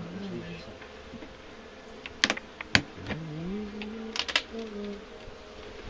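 Honeybees buzzing around an open hive, the buzz of single bees rising and falling in pitch as they fly past. A few sharp clicks and knocks come in two clusters, about two and about four seconds in, as the hive's wooden inner cover, glued down with propolis, is pried loose and handled.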